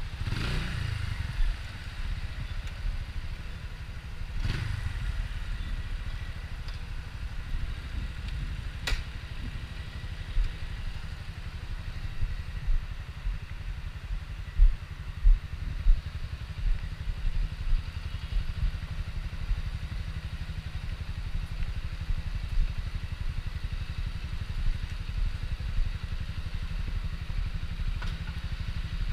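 Motorcycle engine idling with a steady low rumble, with a few short knocks and clicks.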